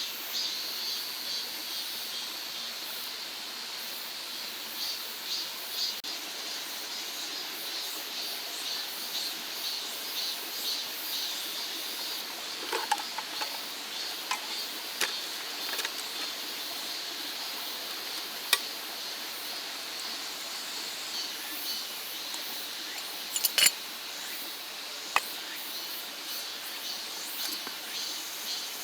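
Insects chirping in quick pulses over a steady hiss of running stream water, with a few sharp clicks and taps scattered through, the loudest a cluster about two thirds of the way in.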